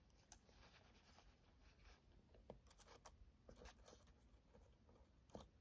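Near silence, with faint scattered light ticks and scratches as a needle-tip oil bottle is worked over the lock of a disassembled folding knife, oiling it.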